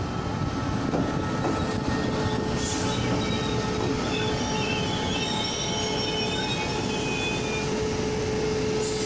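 E1000-series push-pull Tze-Chiang express train rolling slowly into the station as it brakes to a stop: a steady rumble of wheels on rail with a steady hum. Thin, high wheel squeals come in about halfway through and die away near the end.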